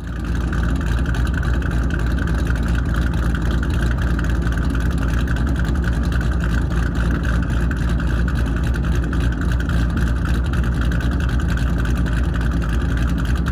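Modified Ford Mustang Bullitt's 3-valve V8 running steadily through long-tube headers, an off-road H-pipe and an FR500S axle-back exhaust. The engine sound is loud and even, with no revving.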